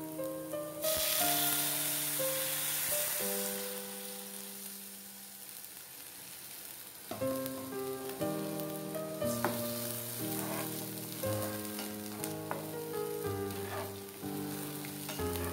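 Cold milk poured into a hot pan of grated bottle gourd fried in ghee: a sudden loud sizzle about a second in that dies away over several seconds, followed by a steel spatula stirring and scraping. Instrumental background music with a stepped melody plays throughout.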